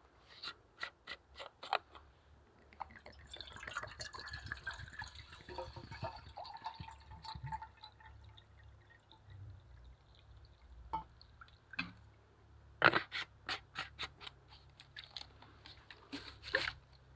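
Short, sharp scrapes and clicks in quick runs near the start and again near the end, with a stretch of trickling, pouring water between them, from handling a small camp stove setup.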